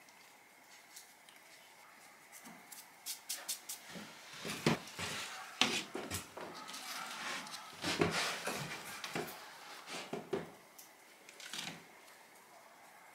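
Hands coating fish in flour in a woven bowl and handling paper plates: soft rustling, patting and scattered light knocks and taps, loudest in the middle.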